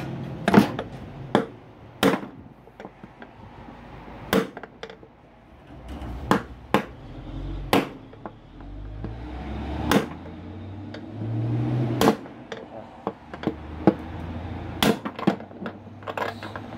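Hammer blows on a metal punch set against a washing-machine drum's hub bearing: a dozen or so sharp metallic strikes, irregularly spaced a second or two apart, driving the old bearing out of its seat.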